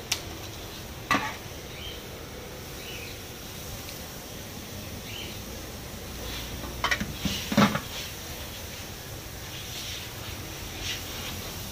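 Steady street background noise with a few sharp knocks and clatters from handling pineapples and gear at a pineapple stall: a click right at the start, a knock about a second in, and a louder cluster of clatters around seven seconds in. Faint short chirps come and go.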